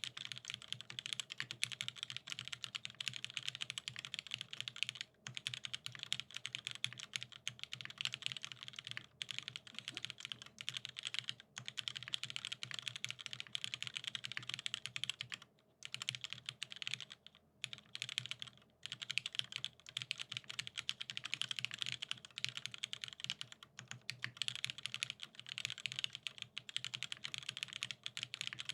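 Fast typing on a keyboard: a dense run of key clicks, broken by a few short pauses.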